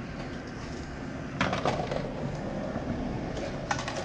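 Light rail train standing at the platform with a steady low hum, broken by a short cluster of clicks and clunks about a second and a half in and another near the end as its doors open.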